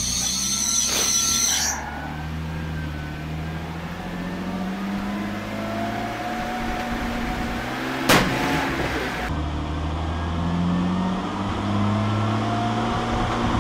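Car engine running, its pitch rising and falling with the throttle, while the exhaust is blocked by a rubber glove taped over a bottle on the tailpipe. A single sharp bang cuts in about eight seconds in.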